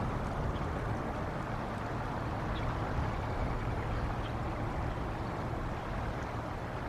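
Steady wind rumble and hiss on an outdoor camera microphone, with a few faint short high chirps.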